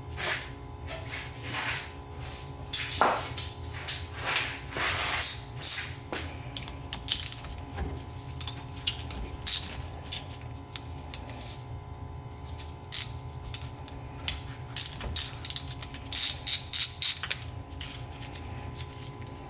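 Hand ratchet with a socket extension clicking as it backs out the 8 mm housing bolts of a starter motor held in a vise. The clicks come in short runs, with a quick run of about five a few seconds before the end.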